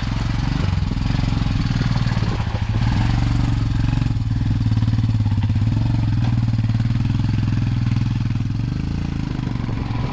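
Motorcycle engine running steadily at low speed on a muddy dirt road, easing off slightly near the end.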